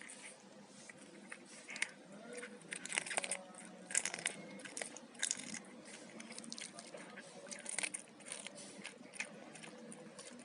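A cat chewing and crunching on fish, with irregular bites.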